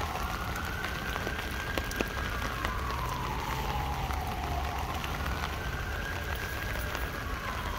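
Rain drumming on an umbrella, with sharp taps of single drops, under a siren wailing slowly up and down about twice.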